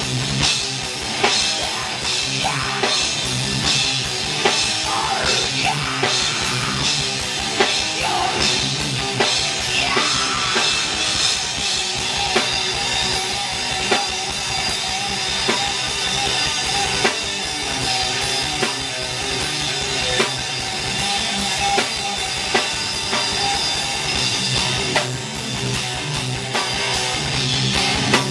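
Progressive metal band playing live: distorted electric guitars over a drum kit, with frequent drum and cymbal hits.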